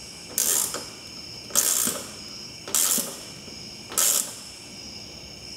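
Ratcheting wrench clicking in four short bursts, about one a second, as it is swung back and forth to tighten a nut on a held bolt. The nut is drawing the bolt up to crush a rivet nut behind the aluminium deck.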